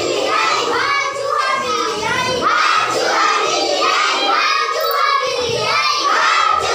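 A group of children singing and calling out together, many high voices overlapping.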